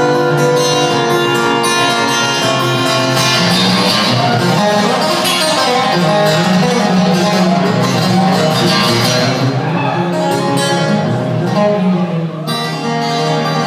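Live band music with guitar lead playing continuously, heard from far back in a large concert hall.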